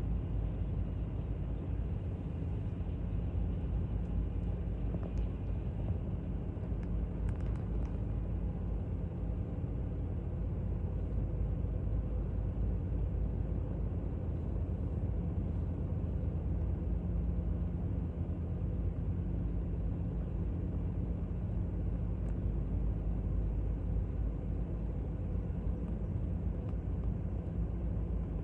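Steady low rumble of jet aircraft engines, with a faint steady hum in it and no sudden events.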